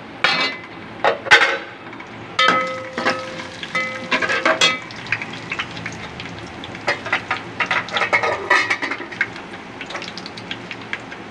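Whole spices and fried onion sizzling in hot oil in a metal pot, while a metal slotted spoon stirs and scrapes them. The spoon knocks against the pot many times, some knocks leaving a short metallic ring, bunched in the first half and again later.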